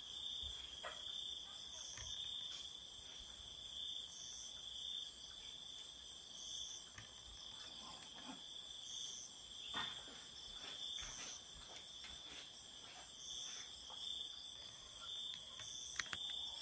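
Night insect chorus of crickets: a steady high-pitched trill, with a higher chirp repeating about every two seconds, and a few faint clicks.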